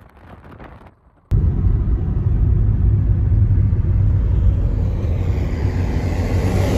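Loud, steady rumble of a car driving along, heard from inside the car with the window near the microphone, starting abruptly about a second in.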